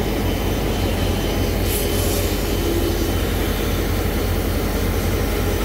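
DT668 steam locomotive standing at the platform with its train, giving a steady low rumble and hiss. A short, sharp hiss of steam comes about two seconds in.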